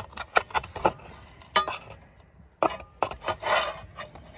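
A metal utensil scraping and tapping inside a hobo pie maker as it pries at a stuck sandwich. A quick run of short scrapes and taps is followed by a few more, then a longer rasping scrape about three seconds in.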